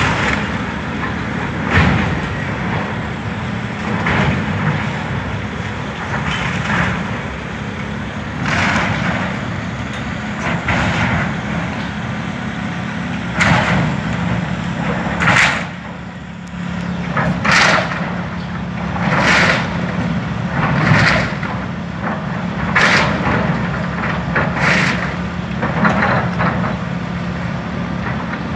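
Tracked hydraulic excavator's diesel engine running steadily as the machine demolishes a building. Repeated crashes and cracking of breaking wood and debris come every second or two, more often in the second half.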